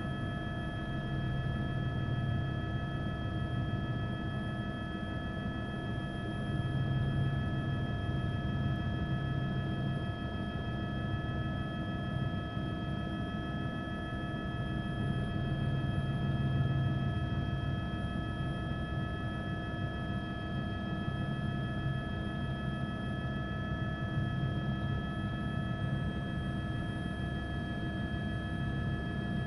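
Steady drone of a helicopter's engine and rotor: a low rumble that swells and eases every few seconds, with several steady whining tones over it.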